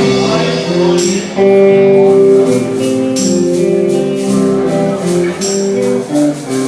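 A live band plays an instrumental passage of held melody notes and chords over guitar, with a tambourine striking and shaking through it.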